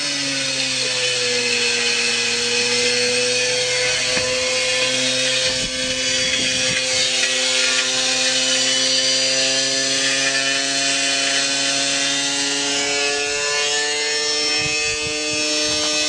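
Washing machine spinning flat out with a heavy load inside, its motor giving a steady whine that creeps slowly up in pitch over a harsh grinding noise.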